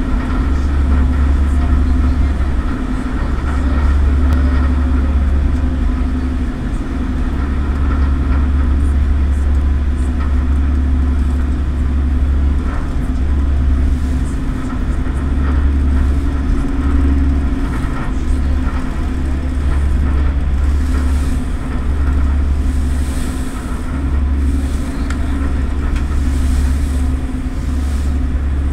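A passenger ferry's engines run with a steady, loud low drone. Wind rumbles on the microphone over it, cutting in and out.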